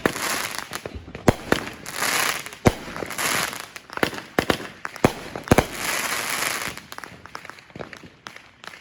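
Fireworks going off: a string of sharp bangs, mixed with hissing, crackling bursts, thinning out near the end.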